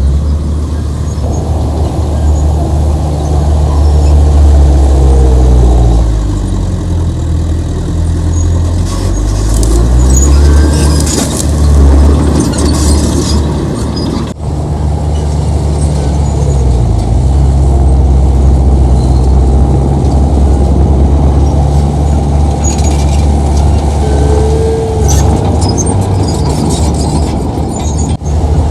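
Heavy diesel earthmoving machinery running under load, engine pitch rising and falling as it works, with intermittent high metallic squeals.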